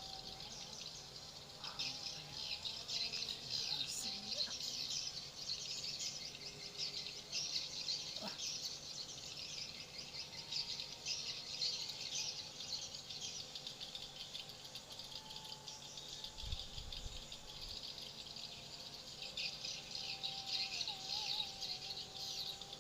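A flock of swiftlets twittering: a dense stream of short, high chirps. It swells about two seconds in, thins out in the middle and thickens again near the end.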